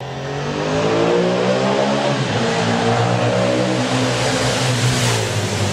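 Engine sound of a revving vehicle, used as the motos.net logo intro, with pitch rising and falling as it goes. A brief whoosh comes about five seconds in.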